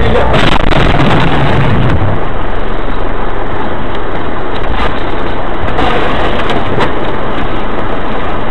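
Car collision heard through a dashcam microphone inside the car: loud, distorted crunching and clattering noise, heaviest low down for the first two seconds, then running on as a harsh rattle.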